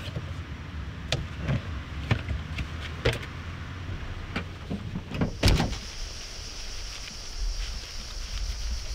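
Knocks and clunks of a plastic cooler being handled in a car's boot, then the car's tailgate pulled down and shut with a heavy thump about five and a half seconds in. A steady high hiss of outdoor ambience follows.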